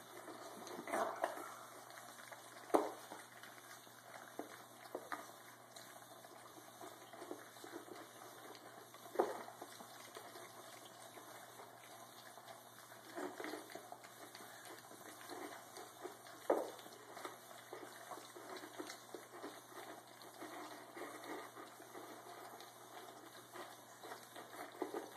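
A litter of six-week-old puppies eating together from one bowl: steady wet slurping and chewing, broken by about three sharp knocks against the bowl.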